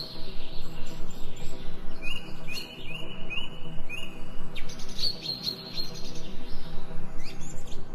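Birds chirping and singing, with a run of four short rising chirps about two seconds in and high held whistled notes, over a steady low musical drone.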